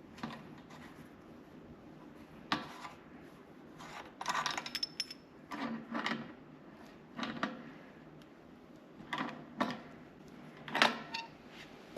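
Intermittent metallic clicks, clinks and rattles of hand tools and small electrical fittings being handled during wiring work, about eight separate knocks with the sharpest near the end.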